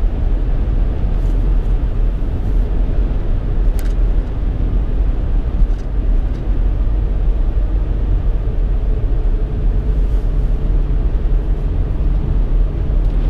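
Steady road and engine noise heard inside a moving car's cabin at highway speed, a low even rumble, with a few faint ticks.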